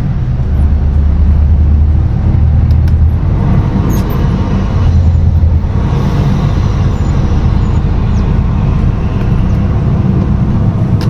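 Diesel engine of a loaded Scania off-highway logging truck running as the truck drives, a steady low drone whose strength shifts a few times.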